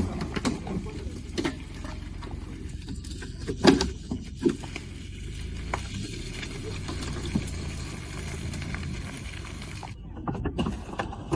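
Mercedes-Benz GLK260 SUV's engine running steadily under load as it climbs a mud slope, with sharp knocks and crackles over it, the loudest about three and a half seconds in.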